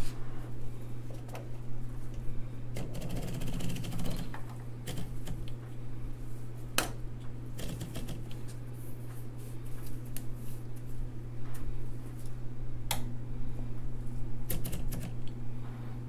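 Royal Award Series 1200 electric typewriter with its motor humming steadily while paper is loaded: a quick run of fine ratchet clicks about three seconds in as the platen is turned to roll the sheet in, and a few sharp single clacks of levers and carriage later on.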